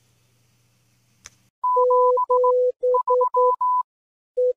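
Electronic beeps at two steady pitches, a higher and a lower one, keyed on and off in short and long tones like Morse code, starting about one and a half seconds in. Before them there is only a faint hum and a single click.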